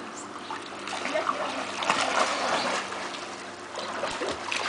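Pool water splashing and sloshing in a stream of small, irregular splashes as people wade and move about in it.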